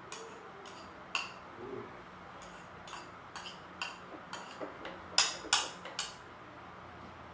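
A spoon tapping and scraping in a small plastic bowl while scooping rice: about a dozen irregular sharp clinks, the loudest two close together about five seconds in.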